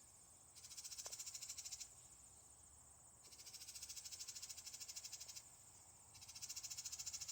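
A small bird's high, buzzy pulsed trill, about fourteen pulses a second, given three times in bouts of one to two seconds with short pauses between. It is faint.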